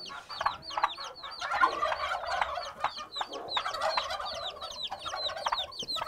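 Turkey poults peeping: many high, falling peeps, several a second, over lower clucking from the broody turkey hens.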